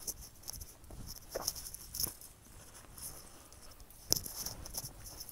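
Footsteps crunching on a dry dirt trail, with dry grass rustling; an uneven run of crunches, the loudest about four seconds in.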